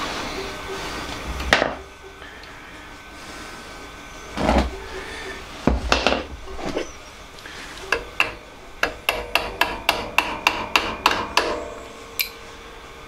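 Hammer tapping a pin punch to drive a pin out of a gear on the bandsaw's gearbox shaft. A few separate knocks come first, then a quick run of about a dozen sharp, ringing taps, roughly three to four a second.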